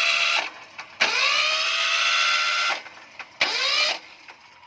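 Electric starter motor on a Honda ES3500 generator cranking in three separate bursts. Each burst opens with a rising whine that then holds steady: one ends about half a second in, a longer one runs for nearly two seconds, and a short one comes near the end. The engine does not catch, even with starting fluid sprayed in.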